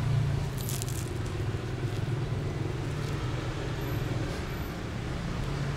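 Steady low rumble of a road vehicle's engine running in the street. About a second in, a short crackle of crusty baguette crunching as it is bitten into.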